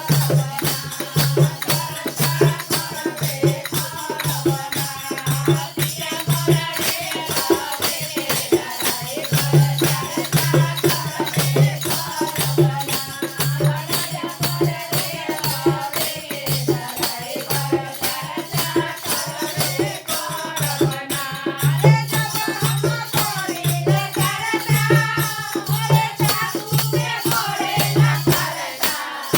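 Bhajan music: a shaker or rattle plays fast, steady strokes over a regular low drum beat, with a wavering melody line above.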